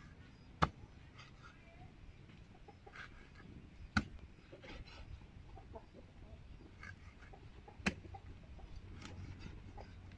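A cleaver chopping through fish onto a thick wooden chopping board: three sharp chops about three to four seconds apart, with fainter knife taps and cuts between.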